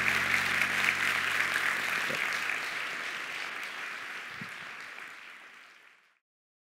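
Audience applauding. The clapping fades gradually over the last few seconds and stops about six seconds in.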